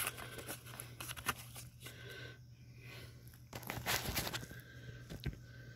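Faint handling noises as a gloved hand works the bushing out of the riding mower's front wheel hub: light scrapes and rustles, a louder scuff about four seconds in and a sharp click a little after five seconds, over a steady low hum.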